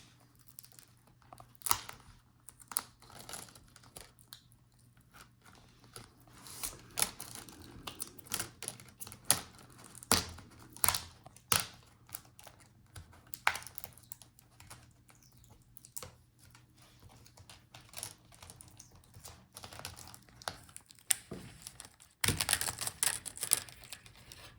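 Plastic laptop display bezel being pried off its lid: irregular sharp clicks and snaps as the clips let go and the adhesive gives. A denser run of crackling comes near the end as the last of it comes free.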